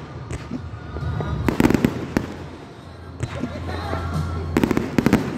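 Fireworks going off in two quick volleys of rapid sharp bangs, one about a second and a half in and another near the end.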